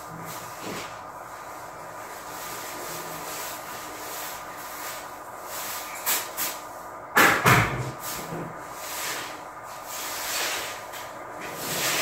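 Haier top-load washing machine spinning its drained, empty tub on the spin stage of a tub-clean cycle: a steady whirring hiss with a faint steady hum. A couple of light clicks and then a sharper knock sound about six to seven seconds in.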